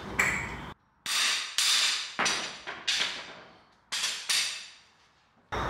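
Hammer blows on a steel cam-bearing installer bar driving a new camshaft bearing into its bore in an LS V8 block, about seven sharp metallic strikes at uneven intervals, each ringing briefly.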